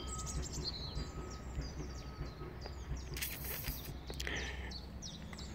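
Small birds chirping and calling, short quick notes over a low steady rumble, with a short hiss a little after three seconds in.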